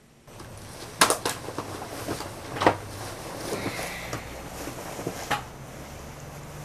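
Bedding and pillows rustling, with a few soft knocks, as a person shifts and settles on a bed, over a faint low hum.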